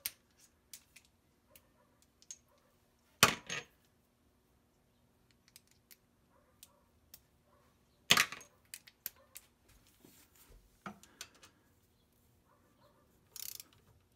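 Metal hand tools clicking and clinking as a torque wrench with a socket extension is fitted and set on bolts. There are two sharp metallic clanks, about three and about eight seconds in, and a short rattle near the end.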